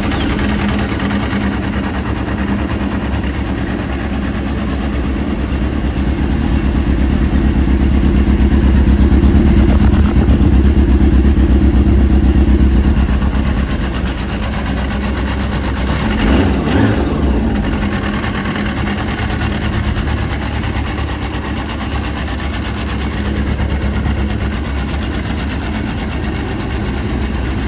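Yamaha RX1 snowmobile's 1000cc four-stroke, four-cylinder carbureted engine running steadily, louder for a few seconds in the first half, with one short rev about two-thirds of the way through.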